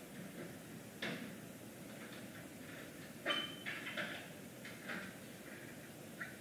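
A few scattered knocks and clatters over a faint steady background: one about a second in, a cluster around the middle with a brief high squeak, and another near the end.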